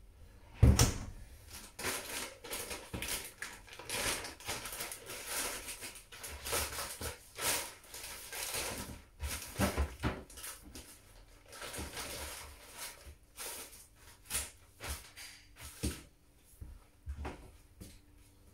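A washing machine's front-loading door shut with a thump about a second in, then plastic wrapping crinkling and rustling in irregular bursts while parts are handled, dying away a couple of seconds before the end.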